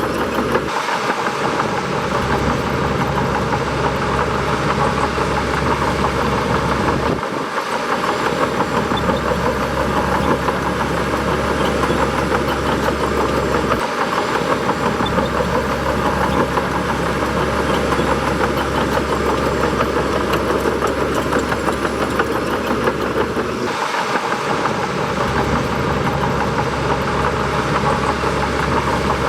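Bulldozer's diesel engine running steadily while working, with the low rumble briefly dropping out a few times.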